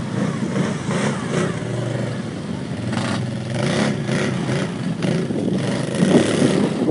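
ATV engine running.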